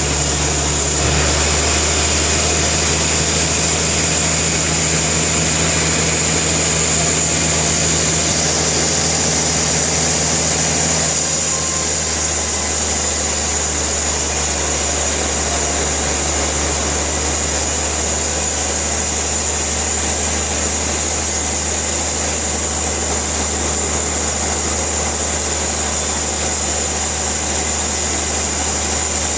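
Sawmill machinery running steadily with a constant low hum and a high whine; one of the low tones drops out about twelve seconds in.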